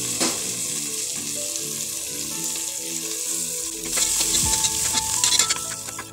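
Sliced onions, green chillies and fresh herbs sizzling in hot oil in an aluminium pressure cooker, a steady hiss. From about four seconds in, a metal ladle stirs them, scraping and clinking against the pot.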